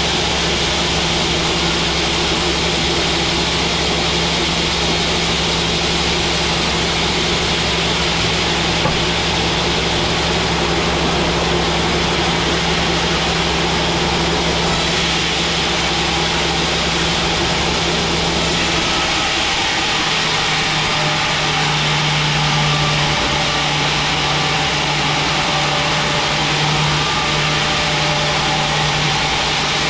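Large band sawmill running, a steady loud machine hum with a hiss on top. About two-thirds of the way through, the hum drops slightly in pitch and grows stronger.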